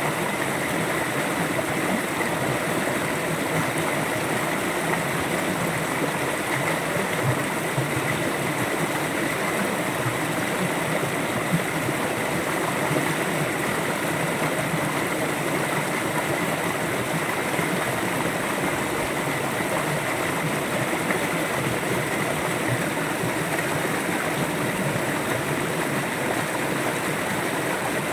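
A river flowing gently: an even, unbroken wash of running water.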